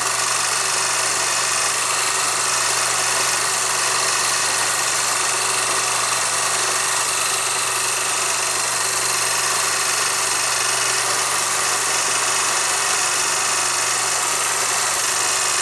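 Film projector running: a steady hum under an even hiss.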